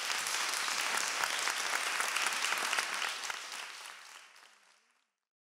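Audience applauding, a steady dense clapping that fades away over the last couple of seconds into silence.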